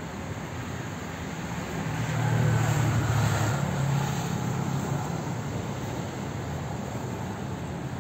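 A motor vehicle passing: engine noise swells about two seconds in and fades over the next few seconds, over a steady background rumble.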